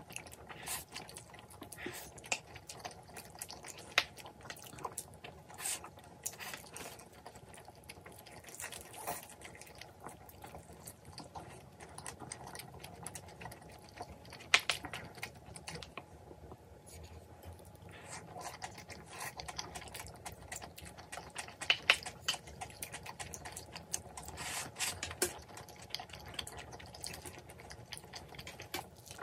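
Close-up eating sounds: wet slurps, smacks and chewing of saucy noodles and chicken, with irregular sharp clicks scattered throughout.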